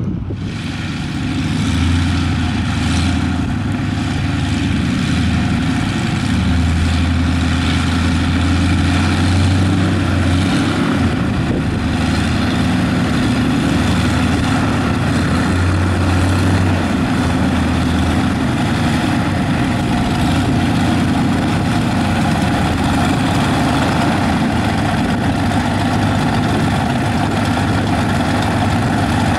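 Radial engine of a Caudron G-III biplane replica running steadily, its propeller turning.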